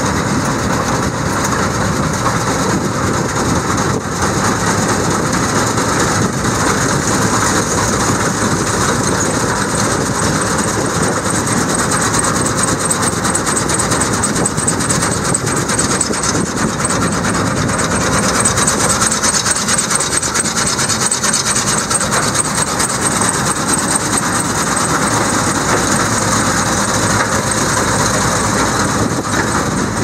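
John Deere 635 Flex header running, with a steady mechanical clatter and rasp from the reciprocating sickle knife and its drives. A fine, fast ticking joins in higher up about halfway through.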